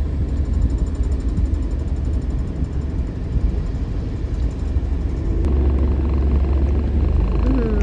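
Motor vehicle running with a steady low rumble. A steadier engine note comes in about five and a half seconds in.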